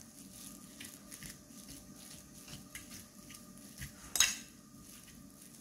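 A metal fork scraping and clinking against a ceramic plate as it mixes spiced minced meat, in faint small ticks and scrapes with one sharper clink about four seconds in.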